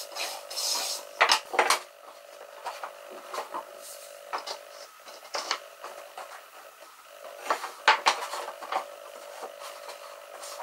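A few rasping strokes of hand sanding along the edge of a thin wooden strip, then wooden strips and a board being handled and set down on a wooden workbench with several sharp clacks and knocks. A faint steady hum runs underneath.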